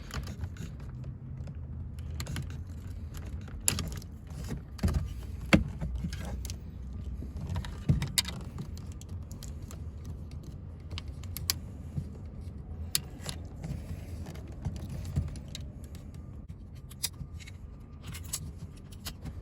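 Scattered sharp clicks and light rattles of a small flathead screwdriver prying at plastic trim clips on a truck's interior door panel, over a steady low hum.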